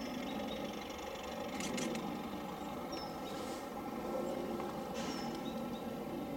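Distant Class 31 diesel locomotive's English Electric engine running, a steady drone, with a bird chirping briefly twice.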